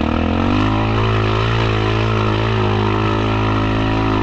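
Yamaha Kodiak 700 ATV's single-cylinder engine revving up right at the start and then held at high, steady revs under load while pushing through mud in two-wheel drive.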